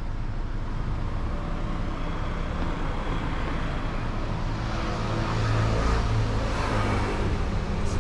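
Street traffic noise with a motor vehicle's engine hum, growing louder about five seconds in.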